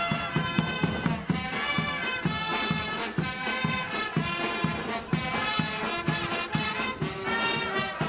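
Brass marching band playing a lively tune, trumpets carrying the melody over a steady drum beat.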